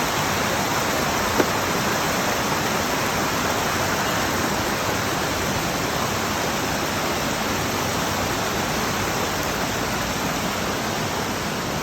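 Steady rush of a waterfall, with one brief click about a second and a half in.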